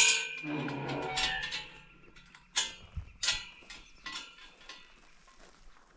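Metal gate chain clanking against a steel pen gate: a sharp clank that rings on for a moment, then a few lighter clinks that die away.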